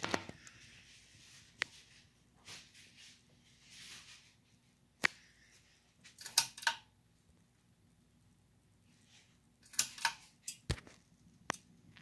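Ceiling fan coasting down after being switched off: a faint steady hum with scattered sharp clicks, a low knock and a few short rattling bursts.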